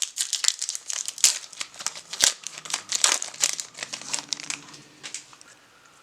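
Plastic wrapper of a trading card pack being torn open and crinkled, a dense run of crackles that thins out and fades over the last couple of seconds.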